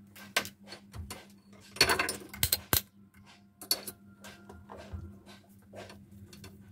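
Handling noise from a digital multimeter and its test leads: scattered sharp clicks and small clattering knocks as the rotary range dial is turned and the probes are picked up, busiest about two to three seconds in. A faint steady hum runs underneath.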